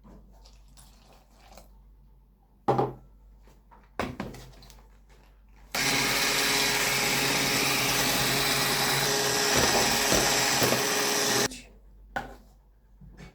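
An electric kitchen mixer runs steadily for about six seconds, starting and stopping abruptly. Two sharp knocks come before it.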